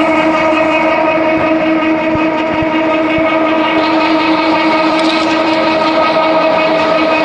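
Charcoal briquette extruder machines running: a loud, steady machine whine made of several even tones over a noisy rumble.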